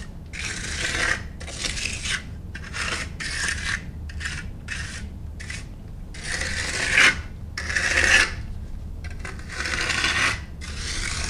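Steel finishing trowel scraping across fresh, partly set concrete in a series of back-and-forth strokes, about one a second. This is the trowelling stage that flattens the surface and gives it a smoother finish.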